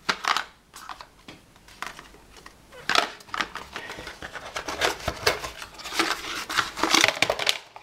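Accessories being unpacked by hand from a gadget box: irregular clicks, taps and rustling of packaging, busier in the second half.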